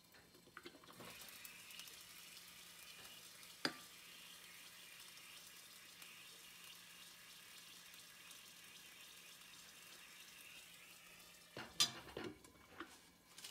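Pancake batter sizzling softly in an open nonstick frying pan, with a sharp tap about four seconds in. Near the start the glass lid is lifted off with a few light knocks, and near the end it clatters back onto the pan.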